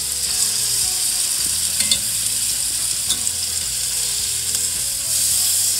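Chicken pieces sizzling steadily in hot olive oil in a non-stick pan on medium-high heat, with a few light taps as the pieces are turned over.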